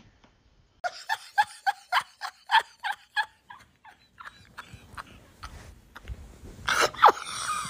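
A person laughing with a hand over the mouth: a run of short, squeaky bursts, about four a second, that fades out, then a louder burst of laughter near the end.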